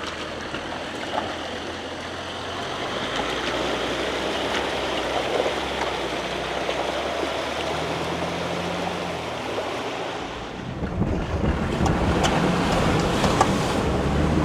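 Off-road vehicle crawling along a rocky dirt trail: engine running low under steady tyre and trail noise. About eleven seconds in it grows louder, rumbling harder, with sharp ticks of stones under the tyres.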